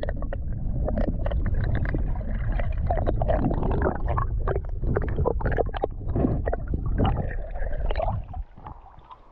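Water sloshing and gurgling around a camera held at and just under a river's surface, a muffled rumble broken by irregular splashes. It dies down about a second before the end.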